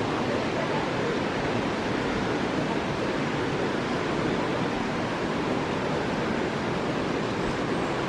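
Tinago Falls' water rushing steadily, an even hiss with no breaks.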